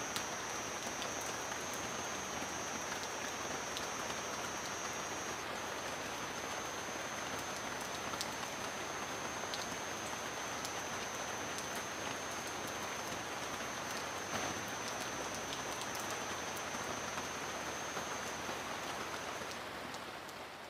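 Steady rain falling: an even hiss of drops with scattered faint ticks, fading out near the end. A thin, steady high-pitched tone runs alongside and stops shortly before the fade.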